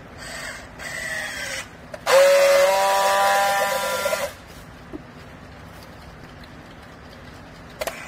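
Battery-powered handheld strapping tool working a plastic strap around a bale. First its motor runs briefly with a falling pitch as it tensions the strap. After a short pause comes a louder, steady buzz of about two seconds as it friction-welds the strap.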